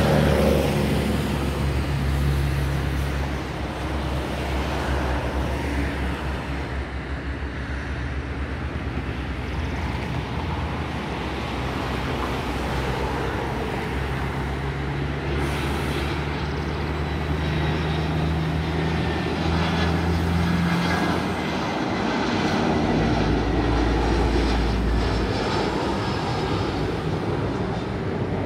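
Airbus A320 airliner on final approach: a steady jet rumble with a thin whine that slowly falls in pitch as it passes, over road traffic noise.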